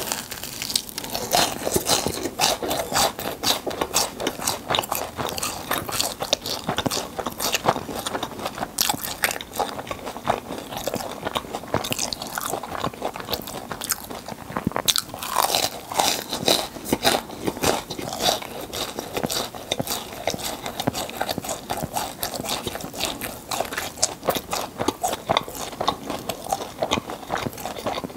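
Crunching and chewing of a sugar-coated filled churro close to the microphone: many crisp crackles as the fried crust is bitten and chewed.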